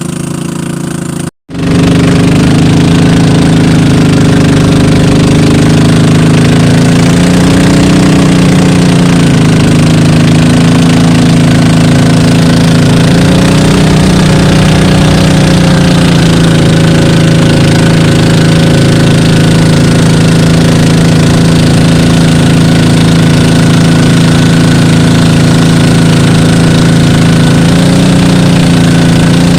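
Motorised boat's engine running loud and steady, its pitch dipping and rising slightly a few times. It comes in at full loudness after a brief gap about a second in.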